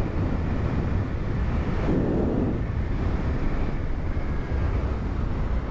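Wind buffeting the microphone of a moving motorcycle, over the steady running of the Honda CRF250L's single-cylinder engine. A brief swell in the rumble comes about two seconds in.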